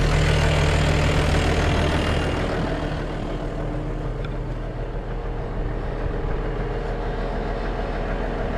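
Massey Ferguson tractor's diesel engine idling. It is louder for about the first two seconds, then settles a little quieter and runs steadily.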